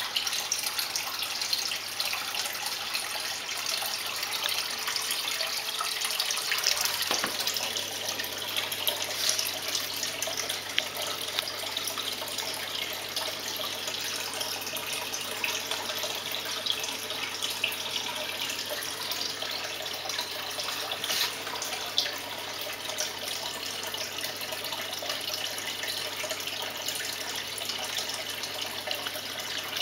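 Steady splashing of water pouring from an aquarium bucket filter's return pipe into the tank's surface, with a steady low hum underneath.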